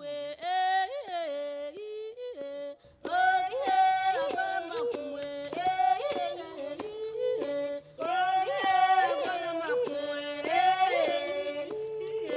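Several voices yodelling in interlocking parts, each leaping sharply between low and high notes, in the style of Central African forest peoples' polyphonic singing. Sharp clicks, like claps or struck sticks, join from about three seconds in.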